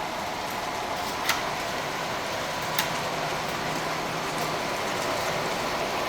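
Model trains running on a miniature railway layout: a steady whir and rumble, with two sharp clicks about a second and a half apart.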